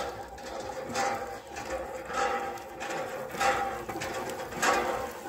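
Old cast-iron hand pump being worked by hand. Each stroke of the handle brings a creak from the metal pump head and a gush of water, in a steady rhythm of about one stroke a second.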